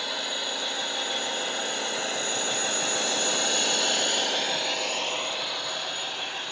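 Hornby Class 56 model's DCC sound decoder playing a Class 56 diesel engine sound through its speaker as the locomotive runs past, a steady engine note with a high whistle over it. It grows louder as the model passes and fades as it moves away.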